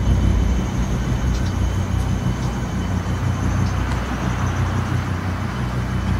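A loud, deep rumbling drone with sustained low notes, steady throughout, with a faint high tone above it.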